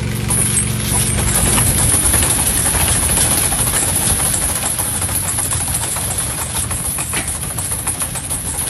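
Loud, steady machine noise with a strong hiss and a fast, uneven clatter, starting and stopping abruptly.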